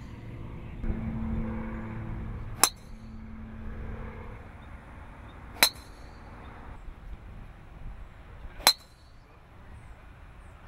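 Callaway Razr Fit driver, a titanium head with a forged-composite crown, striking golf balls off the tee: three sharp, short metallic cracks about three seconds apart, over a low background hum.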